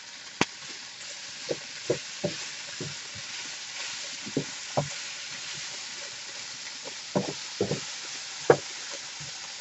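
Stew beef sizzling as it browns in a hot pan, with a utensil knocking and scraping against the pan every second or so as the meat is stirred.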